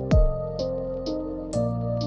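Background music: a soft electronic track with sustained keyboard chords, a deep kick drum twice and light hi-hat ticks on the beat.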